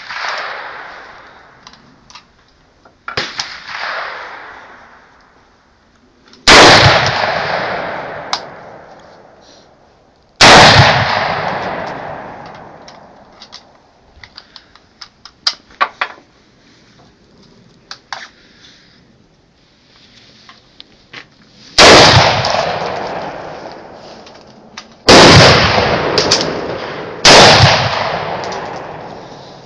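AR-15 rifle fired in slow single shots: five loud cracks several seconds apart, each trailing off in a long echo. Two fainter shots come in the first few seconds, with scattered small clicks between shots.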